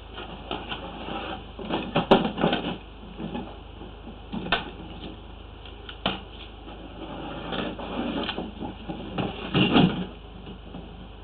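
Knocks, rattles and scraping of a drain inspection camera head and its push cable being pulled back out of the sewer pipe, in irregular clusters, the loudest about two seconds in and near the end.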